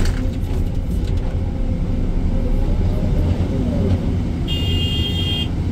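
Excavator's diesel engine running under load, a steady low drone as heard from the operator's cab. About four and a half seconds in, a high-pitched electronic tone sounds for about a second.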